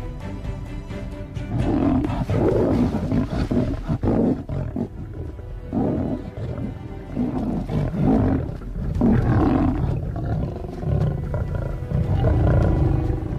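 Lions roaring and growling in a fight, in loud, irregular outbursts starting about a second and a half in, with background music underneath.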